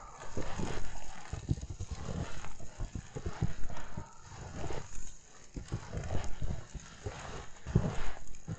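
Footsteps crunching through fresh snow, one step after another at a walking pace.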